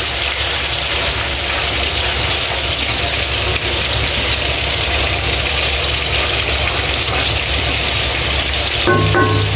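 Onion-and-spice masala thinned with water, bubbling and sizzling in a steel karahi over a gas flame, over a steady low hum. A short pitched sound comes in near the end.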